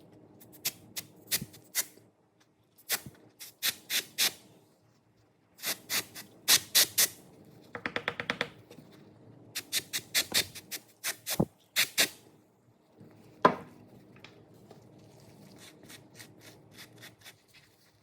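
Leather wallet being worked by hand: a series of short rubbing and scraping strokes, several in quick runs, with a brief rapid rattle about eight seconds in, and lighter strokes near the end.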